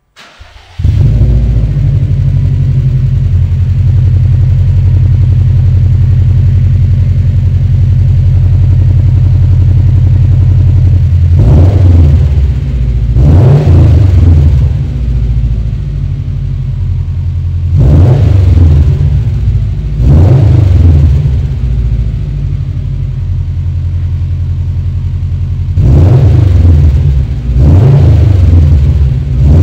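2020 Subaru WRX STI's turbocharged 2.5-litre flat-four starting about a second in, breathing through a freshly fitted Invidia R400 cat-back exhaust with titanium tips. It idles steadily for about ten seconds, then is revved in quick pairs of blips, three pairs in all, settling back to idle between them.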